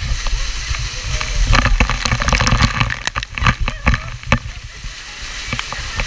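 Waterfall pouring down onto and around a handheld action camera: a heavy rushing hiss with a low rumble on the microphone, and from about a second and a half in, a dense run of sharp spattering hits as water strikes the camera, easing off after about four seconds.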